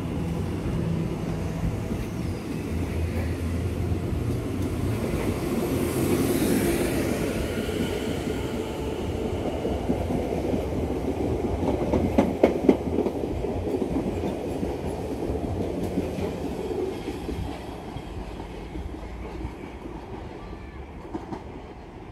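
Class 701 Aventra electric multiple unit departing, its traction motors humming and wheels rumbling along the rails. A few sharp clacks come about halfway through as the wheels cross rail joints, and the rumble fades as the train draws away.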